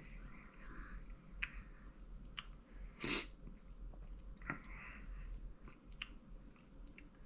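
A person chewing Carolina Reaper–seasoned popcorn, with soft crunching and small mouth clicks, and one short, louder sharp sound about three seconds in.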